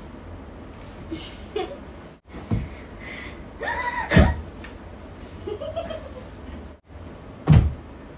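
A young girl laughing and giving a short squeal as she dances and jumps, with a few loud thumps from her jumping, the loudest near the end.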